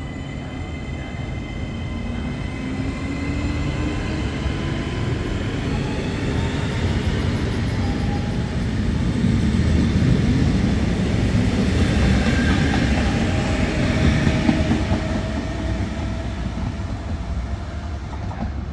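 Hitachi Rock ETR421 double-deck electric train pulling out and running past: its traction motors whine in a rising pitch as it gathers speed over a rumble of wheels on rail. The sound grows loudest about halfway through, then fades as the train moves away.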